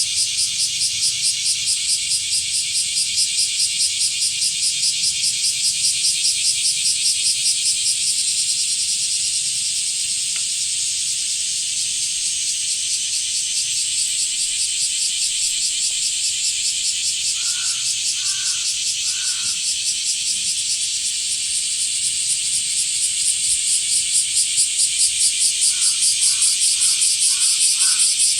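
Blackish cicadas (kumazemi, Cryptotympana facialis) calling loudly and continuously with a fast, even pulsing rhythm, high-pitched and buzzing.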